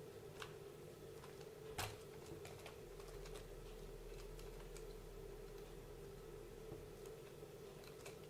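Faint scattered clicks and taps of small RC car parts and tools being handled, with one sharper click about two seconds in, over a steady faint hum.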